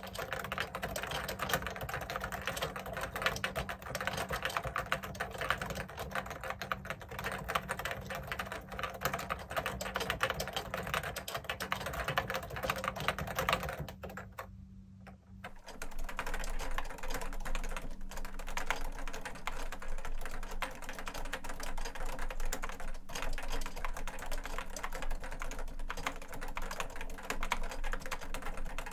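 Continuous typing on a JUKI Celavi keyboard with Topre Hipro switches and 25 g domes, its feet extended: a dense stream of keystrokes. About halfway through, the typing breaks off for about a second. It then resumes with a different tone, now picked up by a studio condenser microphone instead of a phone's microphone.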